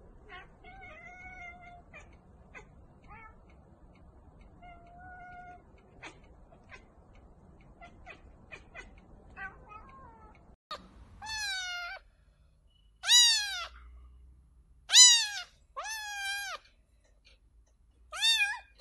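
Domestic cats meowing. There are a few faint meows in the first half, then a little past halfway five loud meows, each rising and then falling in pitch.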